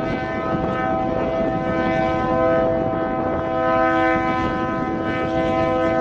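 Diesel locomotive's air horn blowing a long, loud chord of several notes together, with the locomotive's engine running beneath it.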